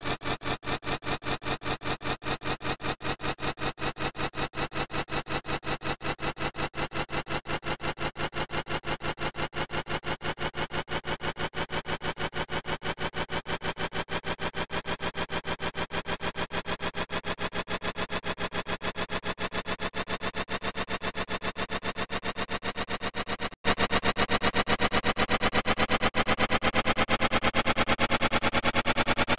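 The 'I'm Peppa Pig' voice clip repeated many times over in very rapid succession, blurring into a dense stuttering buzz whose pitch slowly rises. It cuts out briefly about 23 seconds in and comes back louder.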